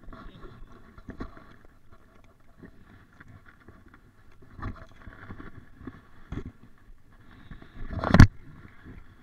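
A few scattered knocks over a faint rustling background, with one much louder thump near the end.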